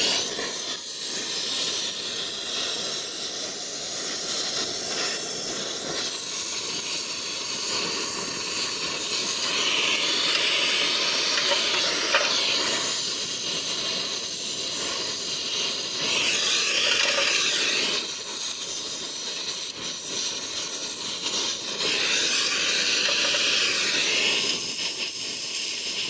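Gas welding torch flame hissing steadily as it heats the steel kickstand and a filler rod is melted in, growing louder in a few stretches of two to three seconds.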